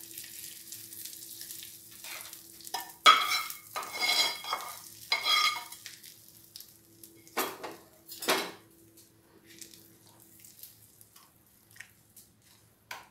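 Hot tempering oil sizzling faintly as it is poured from a pan into a bowl of ginger curry. A metal spatula then scrapes the pan several times, loudest a few seconds in, with two sharper scrapes around seven and eight seconds and small clicks after.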